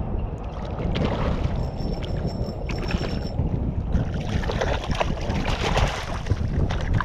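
Wind buffeting the microphone over water lapping around a wading angler. From about four seconds in, a hooked speckled trout splashes and thrashes at the surface.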